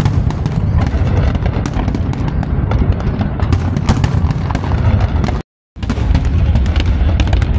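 Aerial fireworks display in a dense barrage: continuous deep booms overlaid with rapid crackling pops. The sound drops out completely for a split second about five and a half seconds in.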